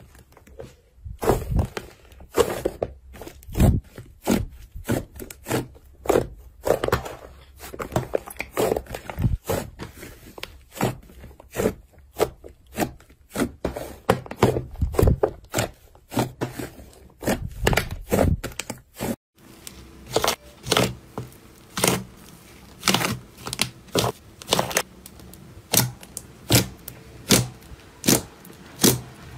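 Slime being squeezed and poked by hand: a dense run of sharp clicks, pops and tearing crackles. About two-thirds of the way in it breaks off, and the clicking goes on at a steadier pace of about one and a half pops a second.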